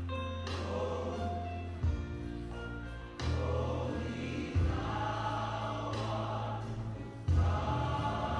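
Gospel choir singing over instrumental accompaniment, with a deep bass line that changes note every second or two and sharp accents about two, three, four and a half and seven seconds in.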